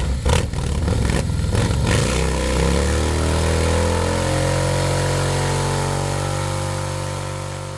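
Motorcycle engine revved in a few sharp blips, then falling in pitch and settling into a steady idle that slowly fades out.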